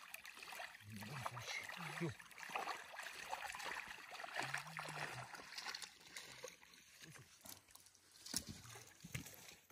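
Faint sloshing and trickling of water as a seine net is hauled through shallow water by people wading, with a few quiet voices.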